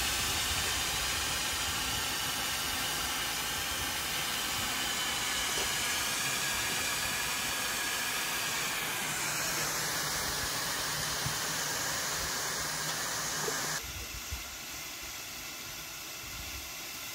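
Steady hiss of cold gas venting from a liquid-oxygen rocket test stand's tank and plumbing. About fourteen seconds in it drops abruptly to a quieter hiss.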